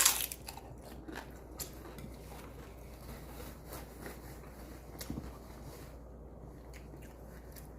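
Eating at close range: a single sharp crunch at the start, typical of biting into a crisp fried tostada, then quiet chewing with a few small clicks.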